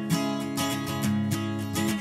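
Background folk music: acoustic guitar strummed in a steady rhythm.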